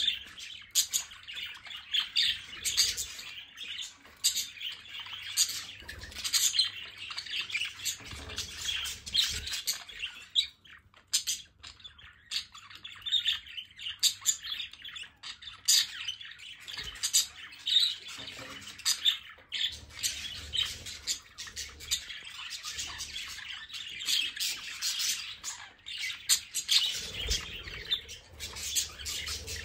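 A flock of pet budgerigars chattering: many short, overlapping chirps and high calls, dropping off for a moment about ten seconds in before picking up again.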